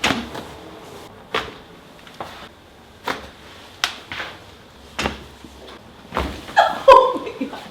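A series of sharp cracks and pops from joints being manipulated during chiropractic adjustments, about nine separate cracks spaced irregularly, the loudest near the end.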